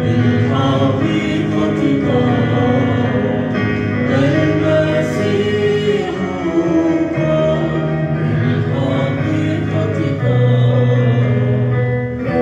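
Choir singing a hymn with instrumental accompaniment, the held chords changing every second or two.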